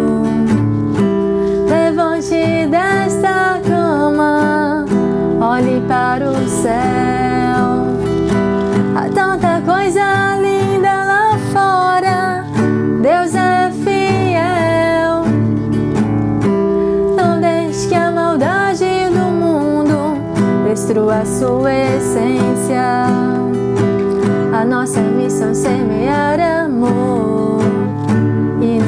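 Music: an acoustic guitar strummed under a woman singing a slow gospel song, her voice gliding through the melody.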